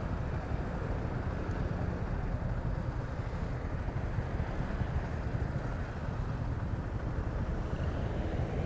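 A motorcycle underway: a steady engine and road rumble with wind noise on the microphone.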